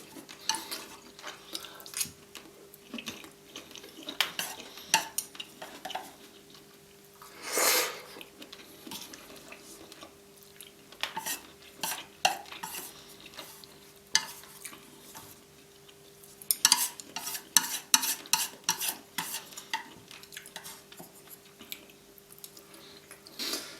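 Eating sounds: utensils clinking and scraping on a plate of crispy fried noodles, in scattered clicks, with one louder rushing sound about a third of the way in and a quick run of clicks near the end. A faint steady hum sits underneath.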